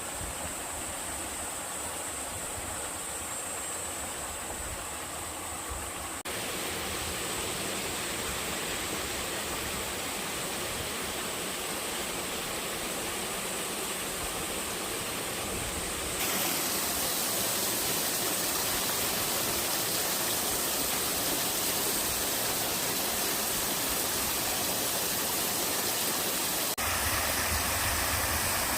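Mountain-stream waterfalls rushing steadily. The sound changes abruptly three times, about 6, 16 and 27 seconds in, as it switches between falls, each one a little louder than the last.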